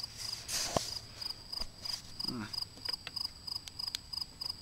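A cricket chirping steadily in the background, a high chirp repeating about four times a second. A few sharp clicks and a brief rustle come from the magnet balls being handled on the table, the loudest click about a second in.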